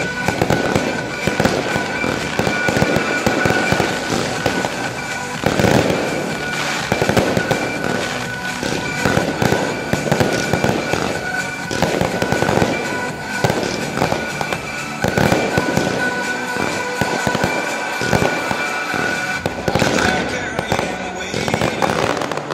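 Aerial firework shells bursting in rapid succession, a dense run of bangs and crackling with no pause, over the show's accompanying music.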